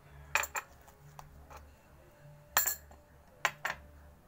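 A handful of sharp clinks and knocks as a glass bowl, metal spoon and small bottles are moved and set down on a table, the loudest about two and a half seconds in.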